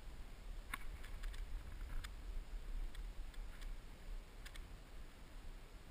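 Faint, irregular clicks and snaps, about eight in all, most of them bunched in the first two seconds, over a steady low rumble.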